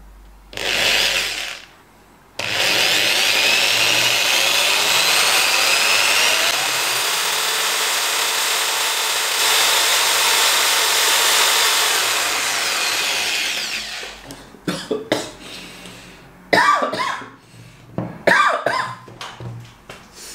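Corded electric drill spinning a chopstick against a wood block: a short burst, then about twelve seconds of steady running with a grinding rub as the stick chars the wood and raises smoke. Then the drill stops and a few short knocks and coughs follow.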